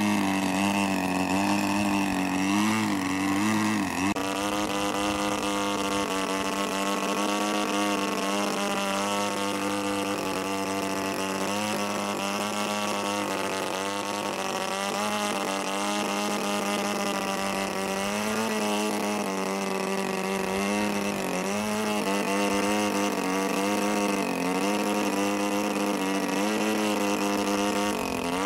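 Desert Aircraft DA-50 single-cylinder two-stroke gas engine of an Extra 300L RC plane running steadily at hover throttle, its pitch rising and falling a little as the throttle is worked to hold the plane hanging on its propeller.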